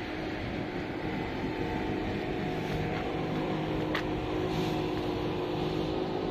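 A container ship's engines drone steadily as it moves slowly through the harbour, with several steady hum tones under a noisy wash, and a single sharp click about four seconds in.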